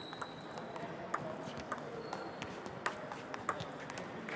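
Table tennis rally: the ball clicks sharply off the bats and the table, a dozen or so quick, uneven clicks, over the murmur of a large sports hall.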